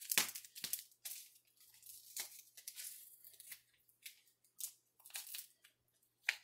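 Paper-foil instant coffee packet being torn open and handled: a series of faint, short crinkles and tearing crackles.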